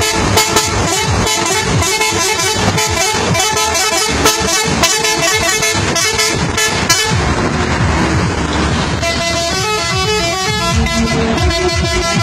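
Indonesian bus 'telolet' horn, a multi-tone air horn, playing a melody of short pulsed notes. The horn gives way to a rushing noise about seven seconds in, then plays on in longer held notes.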